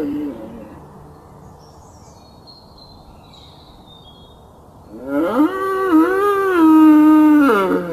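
Bull bellowing. The end of one call fades out right at the start. After a pause, a long call of about three seconds rises, holds, and drops away at the end.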